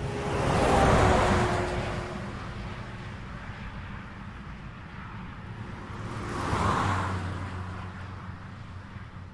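Highway traffic: one vehicle passes close about a second in, and a second, quieter one passes about seven seconds in, each swelling and fading with tyre and engine noise over a steady low traffic rumble.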